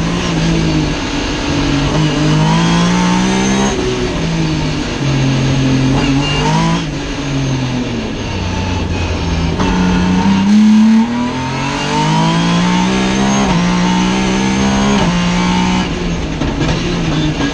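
Racing car engine heard from inside the stripped cabin, accelerating hard: its pitch climbs and then drops sharply, five or six times, at each gear change or lift off the throttle.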